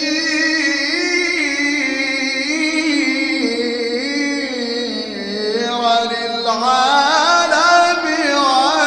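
A munshid chanting Sufi dawn tawashih, drawing out long melismatic notes with wavering ornamental turns, and reaching the words 'lil-ʿālam' near the end.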